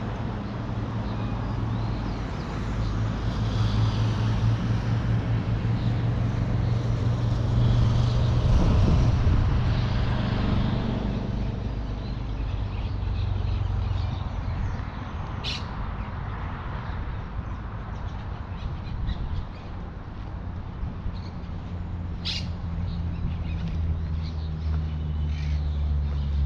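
Park ambience: birds chirping and calling over the steady low hum of motor traffic, which swells about a third of the way in and deepens near the end.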